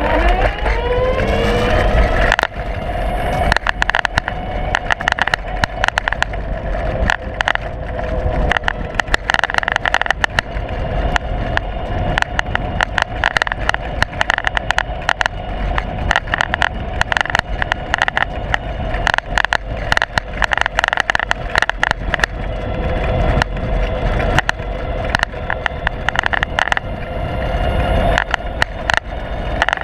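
A loose camera mount on a moving vehicle, rattling and knocking without a break. Under it runs a steady whine that rises in pitch over the first couple of seconds as the ride speeds up, then holds.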